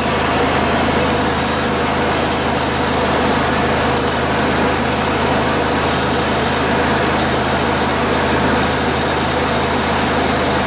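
High-pressure sewer jetter running: a steady pump-and-motor hum under the loud hiss of its water jet blasting against a wooden plank. The nozzle had been reassembled wrongly and throws a plain steady stream instead of its intended cutting pattern.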